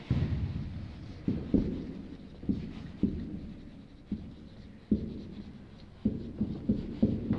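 Marker pen writing on a whiteboard: about a dozen irregular, dull taps and knocks as the pen strokes hit the board.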